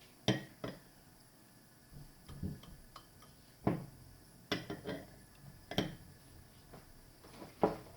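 A teaspoon clinking against a teacup while melted butter is spooned into it: scattered light clinks, about eight over several seconds.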